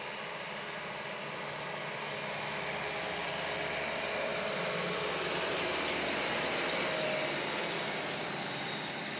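A utility jeep driving past on a paved road: engine and tyre noise slowly growing louder, peaking about seven seconds in, then fading as it goes by.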